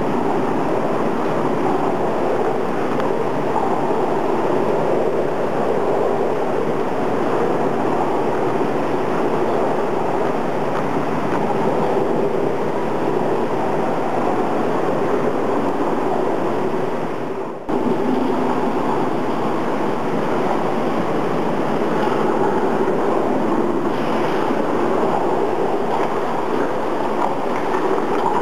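Steady rush of water in a stone-walled indoor pool, dipping briefly and cutting back in about two-thirds of the way through.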